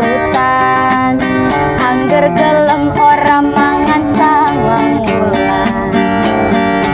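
A woman singing a Javanese pop song with a wavering melodic line, to strummed acoustic guitar.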